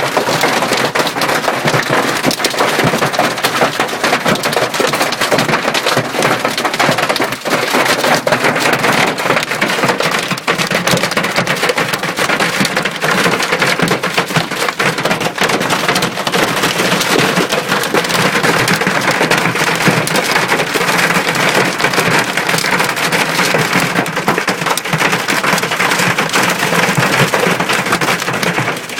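Hailstones pelting a car's roof and body in a heavy storm, heard from inside the car: a dense, steady clatter of countless small impacts.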